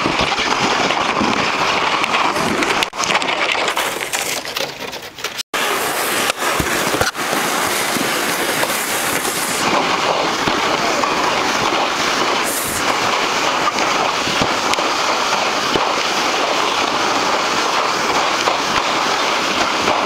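A sled sliding over snow: a continuous scraping hiss of the sled running across the snow, with a brief break about five and a half seconds in.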